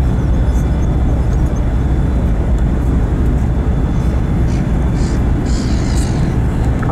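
Wind buffeting the microphone on a ferry's open deck: a loud, steady low rumble.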